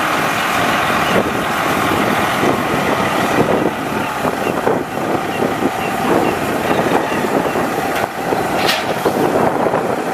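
International DT466 diesel engine of a 2009 Sterling L9500 dump truck running loudly and steadily, with a short sharp noise near the end.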